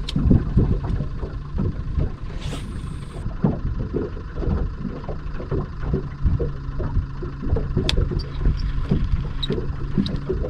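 Water and wind moving around a small fishing boat on open water: an irregular low rumble with soft thumps over a steady low hum. There is a brief rising whoosh about two and a half seconds in, and a few faint clicks near the end.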